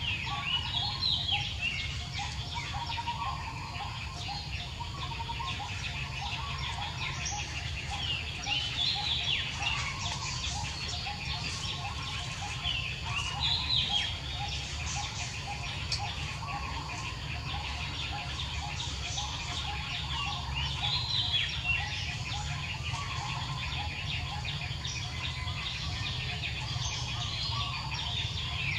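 Birds calling: a run of quick, repeated chirps with sharper, higher calls now and then, over a steady low rumble.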